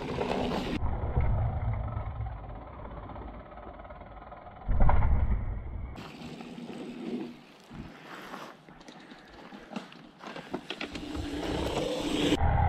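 Mountain bikes riding a dry dirt forest trail: tyre noise on the dirt with wind rumbling on the camera microphone, plus a few short clicks and knocks, in several short clips that cut abruptly from one to the next.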